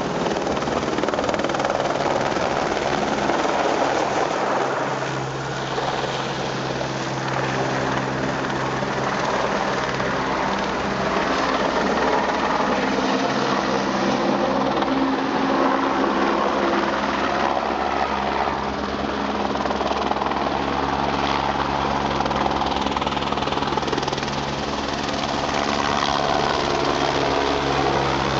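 Eurocopter AS350 Écureuil single-turbine helicopter flying nearby: the rotor and turbine run steadily and loudly, with the sound dropping briefly twice as it moves.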